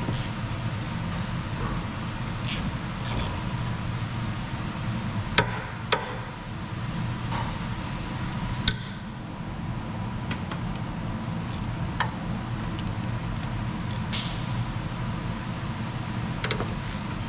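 Wrench work on the turbo bolts of an LBZ Duramax: a few sharp metallic clicks and clinks as the bolts are worked loose, over a steady low hum. The bolts come out without twisting off.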